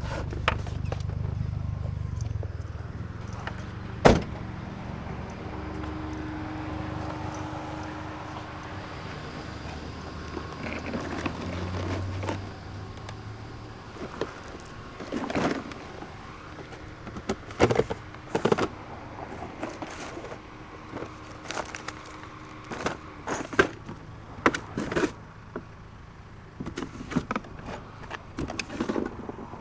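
A low steady rumble like a vehicle running for about the first twelve seconds, with a single sharp knock about four seconds in. From about halfway on, irregular short clanks and knocks of scrap metal being handled.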